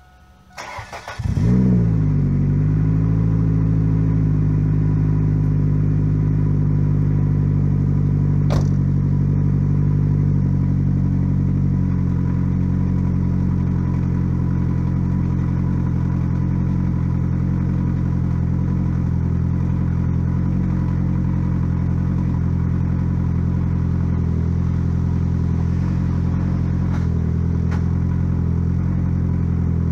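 A 2001 Ford Focus ZX3's 2.0 Zetec DOHC inline-four, breathing through a custom 2.5-inch catback with a single N1 muffler, cranks briefly and starts about a second in, flares up, then settles into a steady idle that drops slightly about twelve seconds in. A single sharp knock about eight seconds in, the driver's door being shut.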